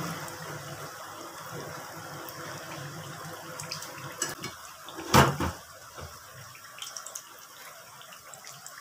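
Samosas deep-frying in hot oil in a metal pan: a steady sizzle. A few light clicks and one louder knock about five seconds in, as a utensil strikes the pan while the samosas are turned.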